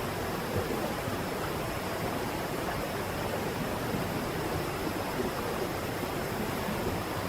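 Waterfall pouring down a cliff: a steady, even rush of falling water.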